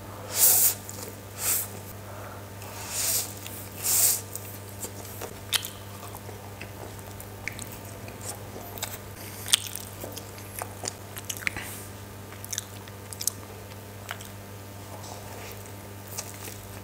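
Close-miked eating sounds: a few loud slurps of chicken chow mein noodles in the first four seconds, then wet chewing with many short smacks and clicks as momos and an egg roll are eaten. A steady low hum runs underneath.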